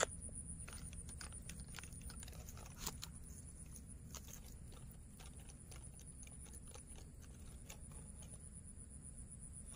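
Quiet outdoor ambience: a steady high-pitched trill with scattered faint clicks and crackles, as of twigs and leaf litter being handled.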